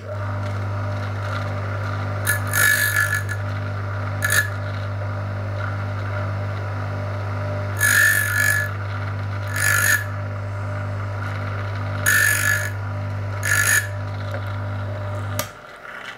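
Electric piston ring end-gap grinder: its motor runs with a steady low hum while the ring end is touched against the grinding wheel in six short bursts of grinding, in three pairs, taking a cut of about two thousandths of an inch in small steps. The motor switches off near the end.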